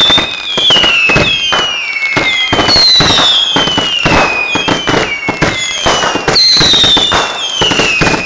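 Fireworks firing a rapid barrage of whistling shots: many overlapping whistles, each falling in pitch over about a second, over a constant crackle of sharp pops and bangs.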